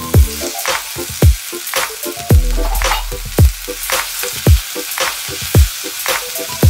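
Spinach and broccoli rabe sizzling in oil in a cast-iron pan as metal tongs turn them, under background music with a deep, falling-pitch kick drum about once a second.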